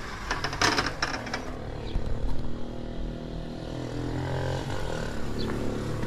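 A window sliding open with a short scraping rush, then a vehicle engine running steadily outside, heard through the open window.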